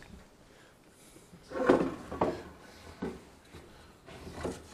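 Wooden boat timbers being shifted and laid on a wooden workbench: a few separate knocks and scrapes of wood on wood, the loudest about two seconds in.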